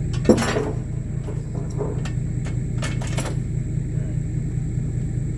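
An engine running steadily, with one sharp, loud metal clank about a third of a second in and a few lighter metal clinks around two to three seconds in, typical of chains and rigging being handled.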